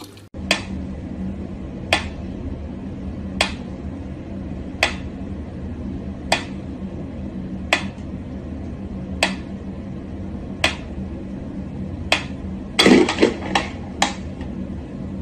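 Mechanical pyramid metronome ticking slowly, one sharp click about every one and a half seconds. Near the end there is a brief clatter of several louder knocks.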